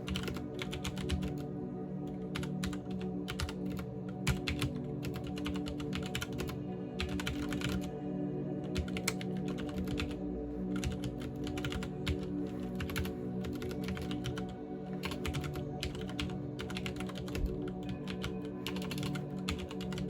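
Continuous typing on a CM Storm XT mechanical keyboard: a dense, uneven patter of key clicks, over soft steady background music.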